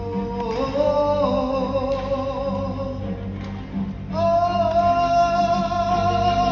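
Live rock band and symphony orchestra playing long held notes with vibrato, with singing; the chord shifts up about a second in, and a louder new chord comes in about four seconds in.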